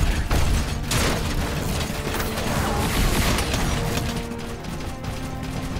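Cartoon battle sound effects: mechanical clanking and whirring of robots, with several crashing impacts, over background action music.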